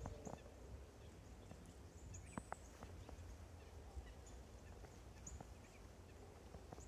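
Near silence with a few soft crunches and clicks, the clearest about two and a half seconds in: a white-tailed deer nosing through snow to feed.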